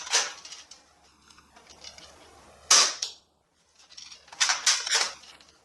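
Toy gun being fired: short sharp snaps, one a little under three seconds in and a quick run of several near the end.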